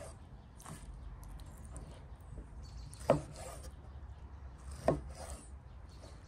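Large kitchen knife slicing raw beef liver on a thick wooden cutting board: soft cutting sounds, with the blade knocking sharply on the board twice, about three and five seconds in.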